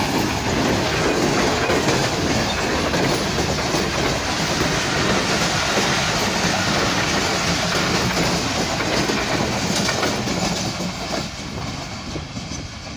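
Passenger coaches of an express train rolling past at speed, their wheels clattering over the rail joints in a loud, steady rush that fades away near the end as the last coach draws off.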